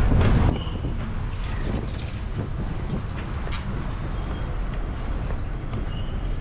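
Diesel engine and road noise of a TNSTC bus heard from inside its cabin as it moves slowly. The first half second is louder, then it settles into a steadier, lower rumble.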